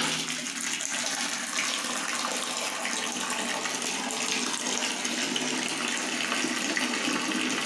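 Hot water running steadily from the outlet of an instant electric water heater just after it has finished heating.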